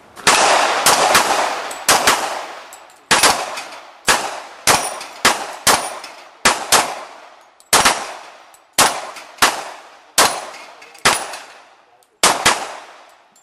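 Rapid string of about twenty gunshots at uneven intervals, each with a short echoing tail, fired at steel plates during a timed run. Some shots are followed by a faint metallic ring from a plate being hit.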